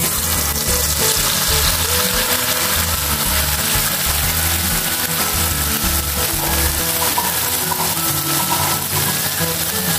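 Blended wet spice paste of shallots, garlic, chilli, candlenut and coriander frying in hot oil in a wok, a steady sizzle that starts suddenly as the paste is poured in. Background music plays underneath.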